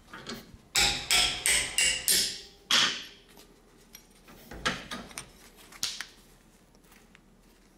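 Sharp metal clanks that ring briefly, about six in quick succession and then a few more spaced apart, as an aluminum plate test piece is knocked against and worked loose from a steel bench vise.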